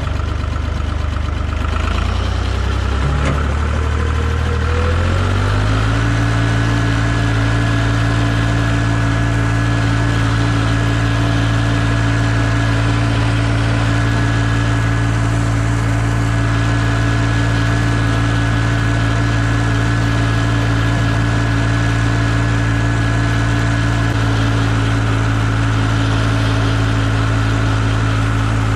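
Holder A45 tractor engine speeding up over a few seconds, then running steadily at the higher speed.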